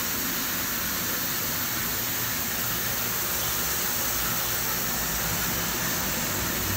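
Reverse osmosis water purifier running: a steady hiss of water forced through the system over a low pump hum.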